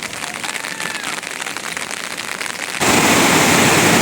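Rain pattering, with many small drop hits. About three seconds in it cuts suddenly to a louder, steady rush of water.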